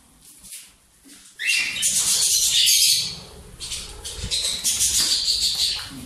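Parrots screeching harshly. A loud screech starts about a second and a half in and lasts about a second and a half, and more screeches follow near the end.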